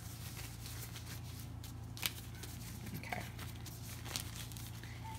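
Thin disposable plastic gloves rustling and crinkling as they are pulled onto the hands, with a few sharp clicks, over a steady low hum.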